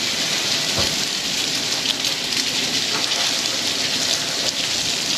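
Water from a hose spraying hard onto a metal fish-cleaning table, a steady hiss and patter of spray splashing on the wet surface.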